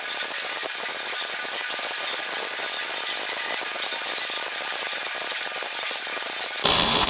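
MIG welding arc with 1.0 mm wire at 20 volts, making a steady, dense crackle and hiss while laying a vertical fillet weld on steel plate. Just before the end it gives way to a duller, lower noise.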